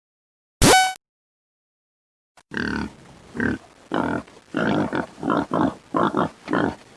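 A single short, sharp pitched blip about half a second in, then, from about two and a half seconds in, a pig grunting over and over, roughly two grunts a second.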